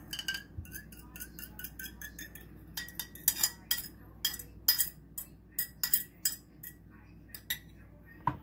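Metal fork clinking and scraping against a ceramic bowl, scraping out the last of the beaten egg: lighter ringing clinks at first, then sharper, louder taps about two or three a second from about three seconds in.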